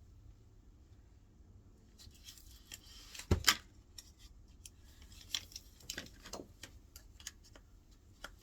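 A washing machine part being handled and tried in its mount: scattered small clicks and taps, with two sharp knocks close together about three and a half seconds in.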